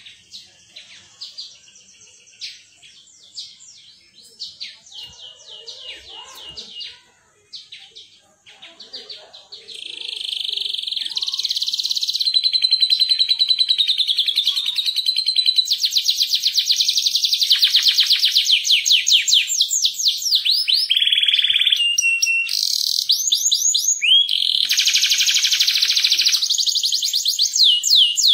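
Yellow domestic canary singing: scattered soft chirps at first, then about ten seconds in a loud, continuous song of fast rolling trills and rapidly repeated notes, the long 'ngerol' roll prized in a canary in full song.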